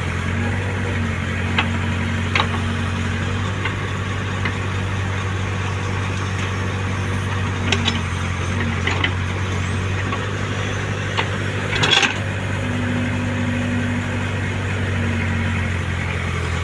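Diesel engine idling steadily, with a few short clanks or knocks, the loudest about twelve seconds in.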